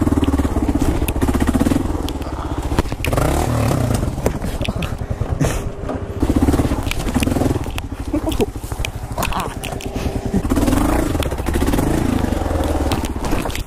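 Kawasaki KLR650's single-cylinder four-stroke engine revving up and falling back in repeated surges, with scattered knocks and scrapes over it.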